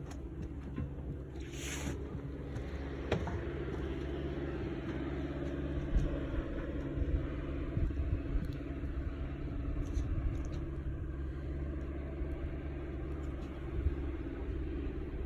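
An engine running steadily nearby, a low even drone with a slight pulsing, and a few faint knocks over it.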